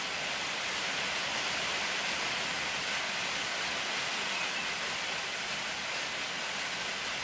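Steady, even hiss with no rhythm or strokes in it, cutting off suddenly at the end.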